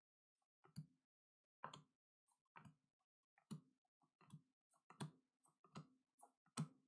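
Faint clicks of trading cards being flipped one at a time through a hand-held stack, about one a second.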